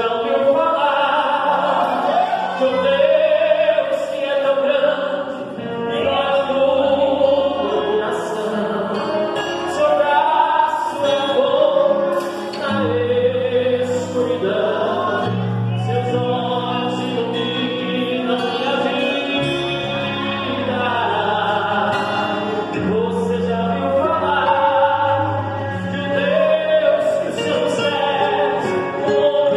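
A man singing a worship song into a handheld microphone, the voice wavering on held notes, over instrumental accompaniment with long sustained bass notes that change every few seconds.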